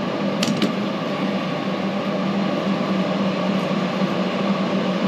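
Steady mechanical hum with a constant low tone, and two light clicks about half a second in.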